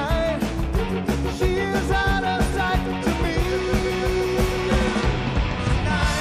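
Rock band playing live: drum kit, bass and electric guitars, with a lead line that bends in pitch and holds one long note midway.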